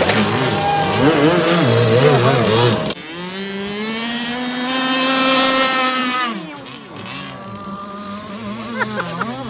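Radio-controlled speedboat's electric motor whining as the boat runs across the water, its pitch wavering up and down with the throttle. About three seconds in the sound changes abruptly to a steadier whine that climbs and then drops away about six seconds in.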